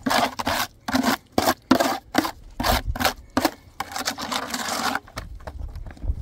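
Rasping, scraping strokes repeated about twice a second, ending in one longer scrape of about a second, followed by faint scattered ticks.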